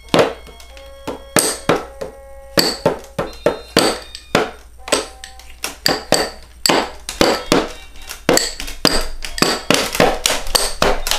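Small toy drum beaten with two sticks in an uneven, childlike rhythm, the strikes coming faster near the end. Short held notes from a toy electronic keyboard sound between the hits.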